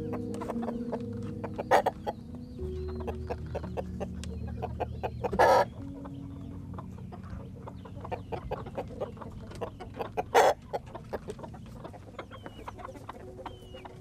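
Chickens clucking, with many short quick clucks and a few louder short bursts, the loudest about five and ten seconds in.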